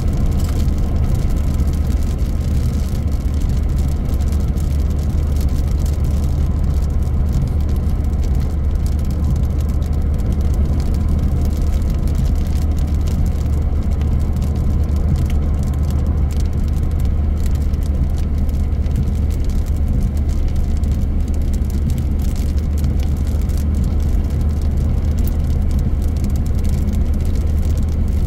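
Steady low rumble of road and engine noise inside the cabin of a car driving along at an even speed.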